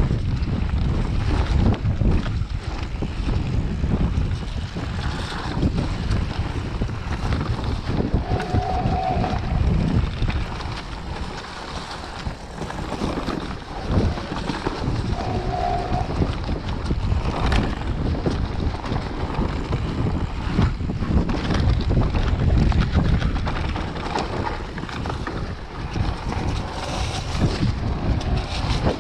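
Mountain bike ridden over a dirt trail strewn with dry leaves: wind buffeting the microphone over the rumble of the tyres, with the bike clattering over bumps and two brief squeaks.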